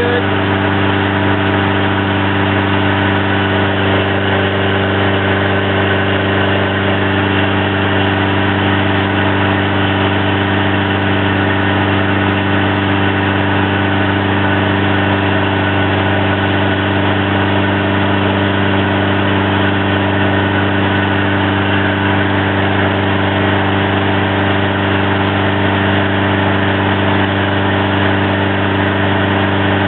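Toyota 22R four-cylinder engine running on wood gas at a steady, constant speed, turning the induction generator. The pitch and loudness hold even throughout.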